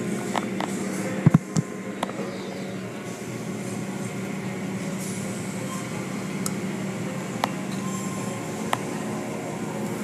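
Automatic car wash heard from inside the car: a steady rush of water spray drumming on the car with a machinery hum. Two sharp knocks come about a second and a half in, and a few single ticks follow later.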